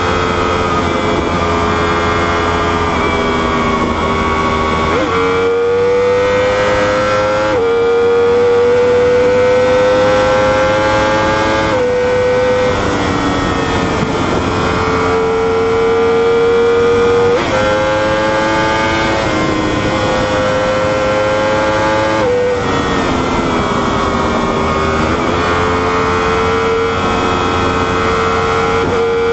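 Inline-four superbike engine running hard at high revs. Its pitch drifts slowly, then steps abruptly up or down several times as the rider changes gear and throttle.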